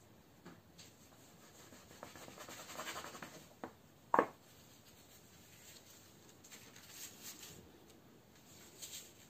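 Soft rubbing and scraping of gloved hands working rolled puff pastry on a floured countertop, lifting the cut circles and peeling away the scraps. There is a click and then a louder short knock about four seconds in.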